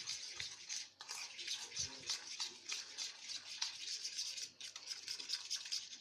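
Metal spoon beating butter, oil and powdered sugar in a stainless-steel bowl: quick, repeated scraping strokes against the bowl, creaming the mixture.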